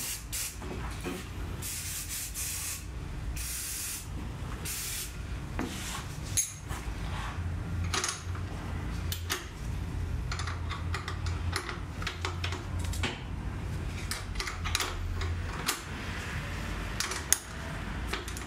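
Hand tools and metal parts clicking, knocking and scraping during motorcycle repair work, with four short hissing bursts in the first five seconds.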